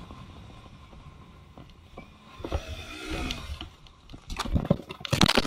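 Motorcycle crash: the engine and wind noise drop away under hard braking, a brief squeal comes about two and a half seconds in, then a run of sharp knocks and scraping builds to a very loud impact at the very end as the bike goes down.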